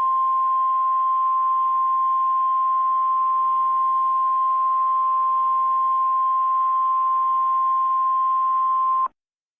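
Mock Emergency Alert System attention tone: a single steady tone near 1 kHz over a faint hiss, held for about nine seconds and then cut off abruptly.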